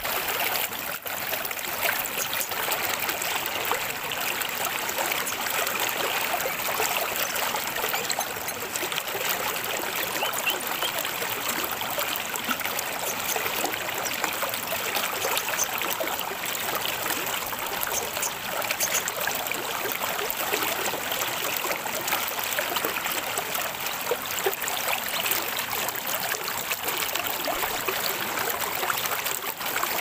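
Steady sound of flowing, trickling water, like a small stream.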